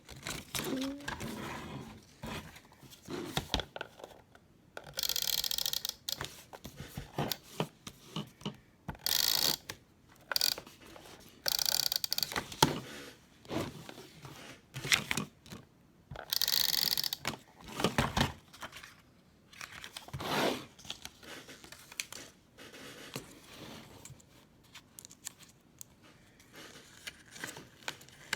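Hands working with paper and tape: a run of crinkling, scraping and tapping noises, with several louder hissing tears about a second long.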